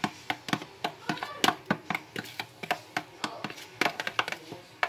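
Metal spoon stirring thick yogurt marinade in a plastic bowl. It makes irregular clicks and taps against the bowl, several a second.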